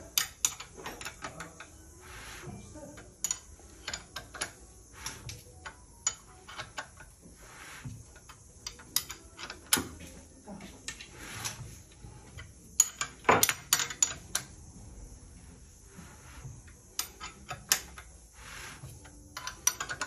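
Ford Transit 2.2 diesel engine being turned over by hand with a wrench on the crankshaft bolt, giving irregular metallic clicks and clinks from the tool and the new timing chain and sprockets. The crank is being rotated a few turns after the locking pins were pulled, to check that the timing lines up again.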